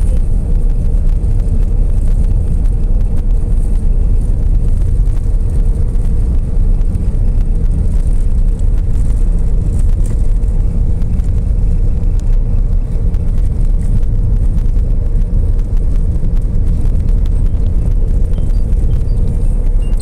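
Steady road noise inside a moving car's cabin: low engine and tyre rumble on a snow-packed road, with a faint steady hum above it.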